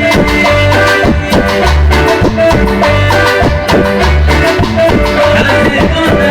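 Salsa-style Latin dance music played on an electronic keyboard, with a bass line repeating about every second and a quarter under busy percussion.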